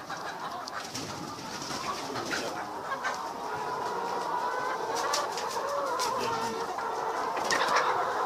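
A flock of chickens calling all at once: many overlapping clucks and trills, with a few sharp clicks about five seconds in and near the end.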